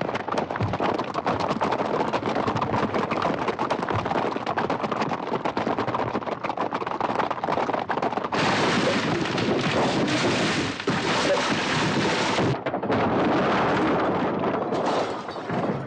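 Horses galloping and a horse-drawn wagon clattering over rough ground in dense, rapid knocks. About eight seconds in, a loud, even rush of noise takes over for about four seconds and then stops abruptly.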